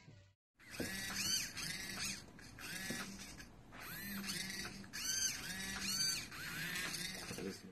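Several hobby servo motors driving 3D-printed cams in a guitar fret-pressing mechanism. They give a run of short whines, each rising then falling in pitch, about a dozen in all at an uneven pace, over a low steady hum. The whines start about half a second in.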